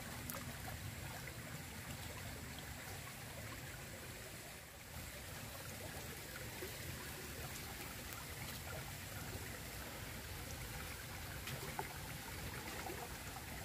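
Small ditch stream flowing steadily, a low, even sound of running water.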